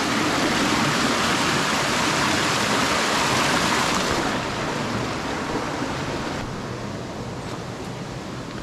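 Mountain stream rushing over rocks and a small cascade, a steady rush of water that grows fainter over the second half.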